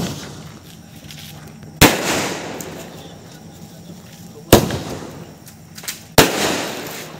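Aerial firework shots going off: three loud bangs about two seconds apart, each trailing off slowly into an echo.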